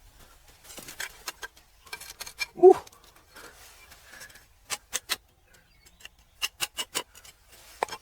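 A series of sharp taps and clicks of hard objects striking, coming in quick runs of two to five, some with a short ringing note. A brief vocal exclamation comes about three seconds in.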